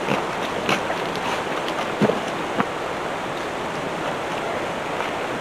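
A steady rushing noise, like wind or air moving past the microphone, with a few short knocks or taps: one near the start and two about two seconds in.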